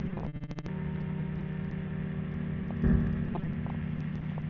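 Weight-shift ultralight trike's engine and pusher propeller droning steadily at climb power. The sound cuts out briefly about half a second in, and there is a short louder low bump near three seconds in.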